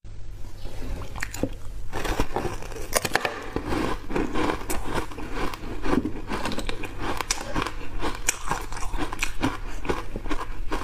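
Chewing a mouthful of refrozen block ice coated in matcha powder, with dense, irregular crunching and crackling close to the microphone.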